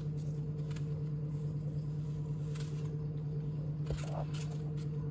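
Y-peeler scraping the skin off an apple in a few faint strokes, over a steady low hum.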